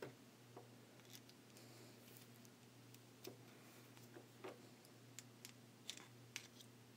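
Near silence with faint, scattered clicks from a small plastic electric plug and its wires being handled in the fingers, over a steady low hum.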